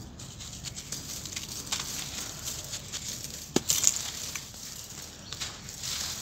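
Dry sand-cement chunks crunching and crumbling in bare hands, with grit and dust trickling down in a steady patter of tiny clicks. A sharper crack about three and a half seconds in, as a piece breaks.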